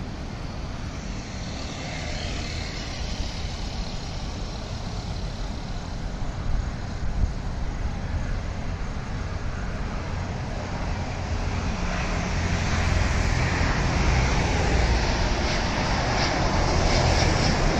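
Jet airliner on final approach for landing, its engine noise growing louder over the last several seconds as it nears and passes low overhead, over a steady rumble of road traffic.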